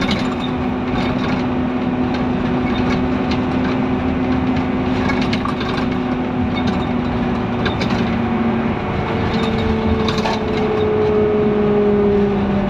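Scania N230UD Omnidekka double-decker bus heard from inside the passenger saloon while under way: its diesel engine runs with a steady drone over road noise, with scattered rattles and clicks from the interior fittings. About nine seconds in the engine note changes and settles on a higher pitch.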